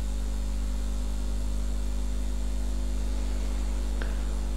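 Steady electrical mains hum: a low drone with a stack of even overtones over faint hiss, with a faint tick near the end.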